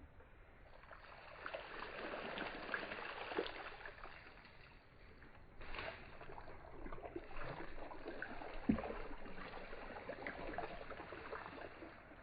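Water pouring and trickling onto soil in two spells with a short break between, with a light crackle as it soaks in and one soft knock partway through. A newly planted plant is being watered in.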